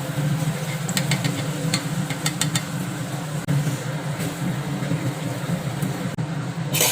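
Boiled chickpeas being added to the masala in a pan and stirred: a few sharp clicks of a spoon against the pan between about one and two and a half seconds in, over a steady low hum, with a short hiss near the end.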